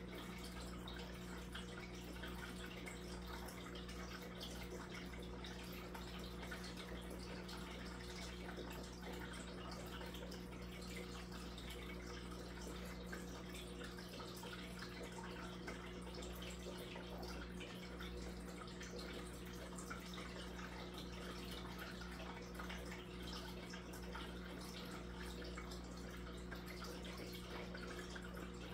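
Aquarium filter running: a steady trickle and splash of water churning the tank's surface, with a low steady hum underneath.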